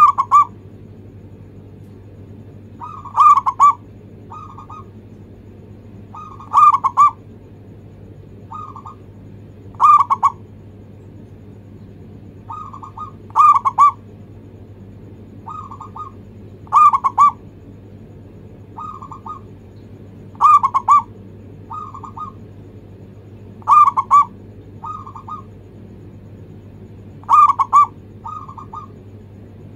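Zebra dove (perkutut) cooing its rhythmic song: a loud burst of quick, short coo notes about every three and a half seconds, with a softer phrase between most of them. A faint low steady hum underneath.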